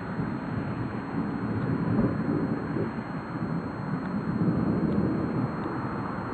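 Storm wind buffeting the microphone: a low, gusty rumble that swells and eases every second or two.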